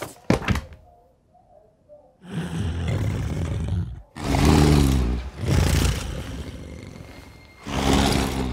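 Two sharp knocks right at the start, then a run of loud, deep, rough growls, long rasping breaths alternating with pitched rumbles, like a creature growling in the dark.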